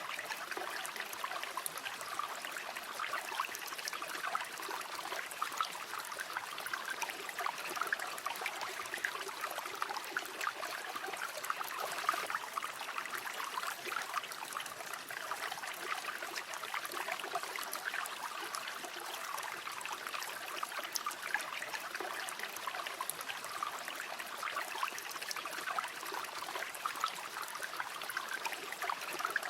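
River water flowing steadily, a continuous babbling with many small splashes and trickles.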